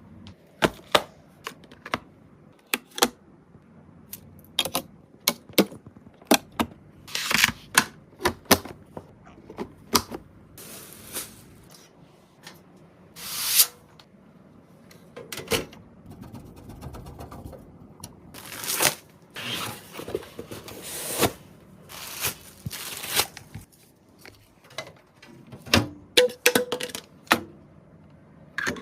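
Irregular sharp clicks, knocks and short scrapes of computer parts being handled and fitted together during a PC build.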